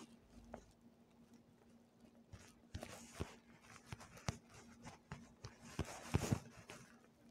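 Faint scattered clicks and taps of fingers on a phone's touchscreen and body, picked up by the phone's own microphone, over a faint steady hum.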